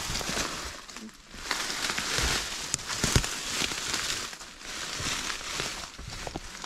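Close rustling and crinkling of a synthetic jacket moving against the microphone, in bursts a second or two long, with scattered sharp clicks; the loudest click comes about three seconds in.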